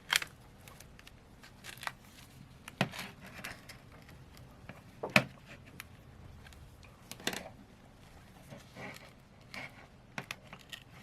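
Scattered sharp clicks and taps of a Samsung Galaxy A52's plastic back cover and a plastic opening tool being handled on a work surface, the loudest about five seconds in.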